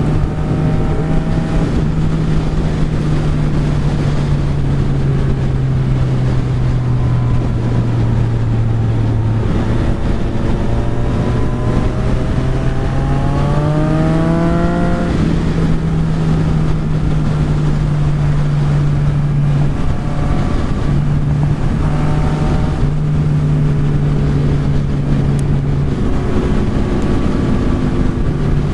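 Yamaha XSR900's inline-three engine running at a steady cruise, heard from on the bike with heavy wind rush over the microphone. About halfway through, the engine pitch rises as the bike accelerates, then holds steady again.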